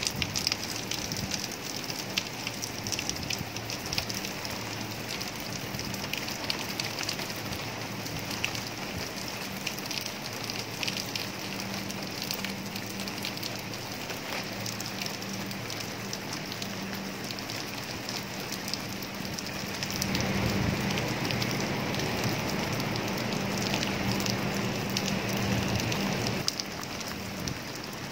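Steady rain falling on leafy garden plants and a flat sheet, a hiss dotted with the ticks of individual drops, over a steady low hum. The rain grows louder about two-thirds of the way through and eases again near the end.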